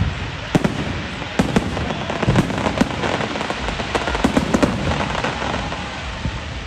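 Fireworks display: an irregular string of sharp bangs and crackling bursts from exploding shells.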